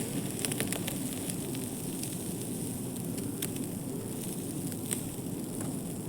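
Wood campfire burning, crackling with scattered sharp pops over a steady low rustle.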